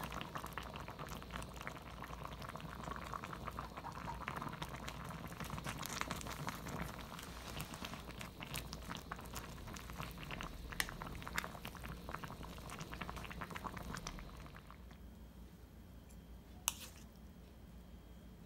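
Spicy tofu stew boiling in a ceramic pot, a steady bubbling full of small pops as chives are stirred through it. The bubbling stops about fifteen seconds in, leaving a quieter background with one sharp click.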